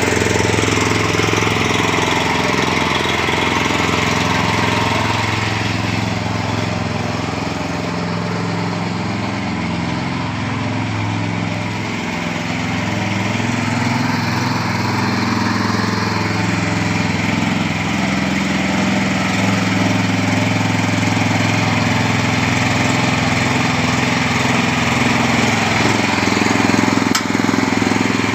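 Small engine of a mini rotavator running steadily at work, its pitch wavering slightly as the load changes. One brief sharp click near the end.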